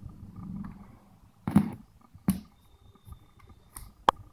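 A few short sharp clicks and knocks from handling as the aux cable's plug is pushed into the back of a small desktop speaker, over low rustling.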